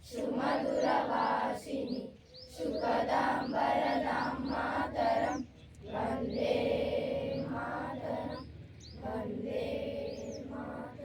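A large group of schoolchildren reciting together in unison, in phrases of two to three seconds with short pauses between them. Birds chirp repeatedly over the voices.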